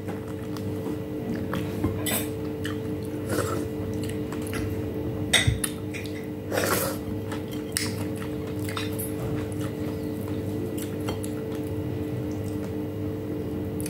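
Eating at a table with the fingers: scattered clicks and light clinks of dishes, the sharpest about five seconds in, over a steady low hum.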